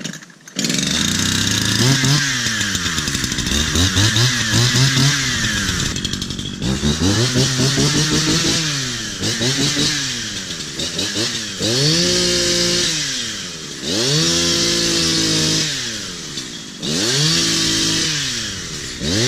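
Chainsaw cutting fallen timber, its engine revving up and dropping back over and over as the throttle is worked.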